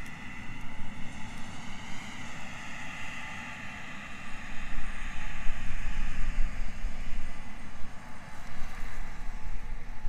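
Distant combine harvester running while harvesting corn: a steady drone with a high whine. Wind rumbles on the microphone, stronger from about halfway in.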